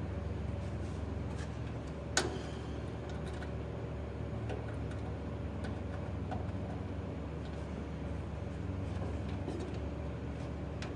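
Steady low hum with scattered light ticks and one sharp metallic click about two seconds in, from a steel mounting plate being handled against a sheet-metal firewall.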